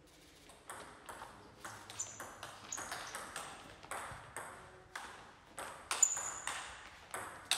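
Table tennis rally: the celluloid-type ball clicking off bats and table in a quick, even rhythm of about two to three hits a second, starting about a second in. One sharper, louder hit comes about six seconds in.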